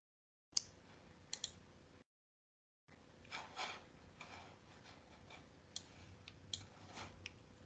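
Faint, scattered sharp clicks of a computer mouse and keyboard as a presentation is opened and screen-shared over a video call. The call audio drops to dead silence twice in the first three seconds.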